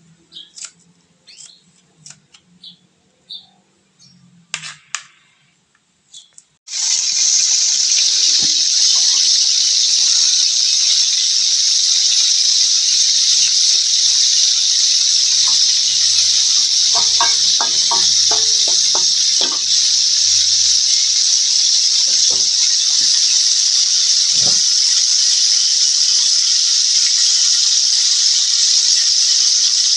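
Cubes of salted fish (jambal roti) sizzling steadily in hot oil in a wok, the sizzle starting suddenly about seven seconds in. Before it there are a few light clicks and taps, and partway through a few clinks of a metal spatula against the wok.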